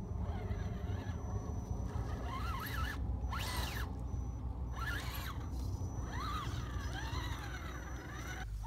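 Axial RC scale crawler's electric motor and gear drivetrain whining in several short spurts, the pitch rising and falling as the throttle is worked while the truck climbs out of a dip, over a steady low rumble.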